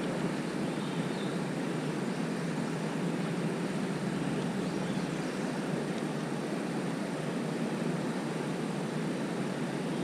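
Water pouring steadily over a lake spillway: an even, unbroken rush, heaviest low in pitch.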